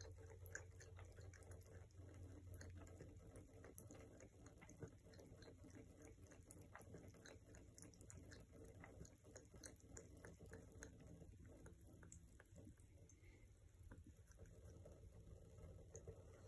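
Faint, irregular wet clicks of a cat lapping water with its tongue from a thin trickle running out of a bathtub tap, over the quiet trickle of the water.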